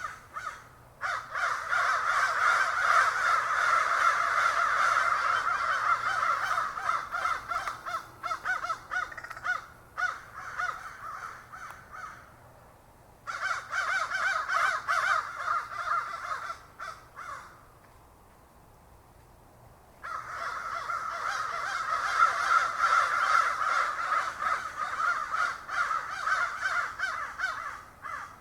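A flock of crows cawing, many calls overlapping, in three long stretches with short lulls between them.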